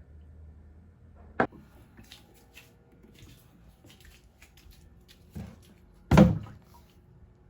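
Household handling sounds: a sharp click about a second and a half in, a few faint clicks, then a heavier knock or thud about six seconds in, the loudest sound, ringing briefly.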